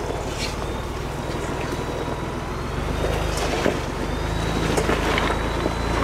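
A 2021 Ford Bronco's 2.7 L twin-turbo EcoBoost V6 running at low speed as the truck crawls over rocks, its hum growing a little louder about halfway through, with a few short knocks and scrapes.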